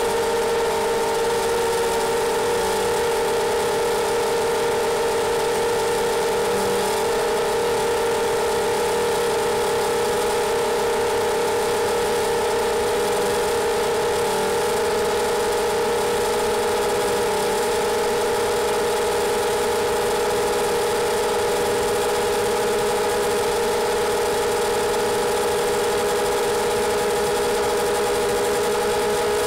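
iFlight XL7 FPV quadcopter's electric motors and propellers whining at a steady pitch over a constant hiss of airflow, as picked up by the onboard camera.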